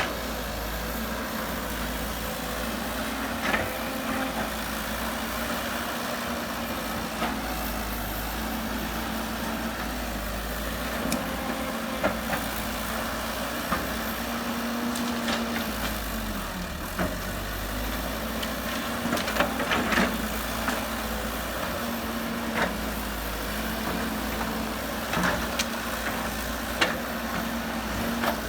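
Heavy earthmoving machinery's diesel engine running steadily, a low rumble with a held drone, with a dozen or so short, sharp knocks scattered throughout.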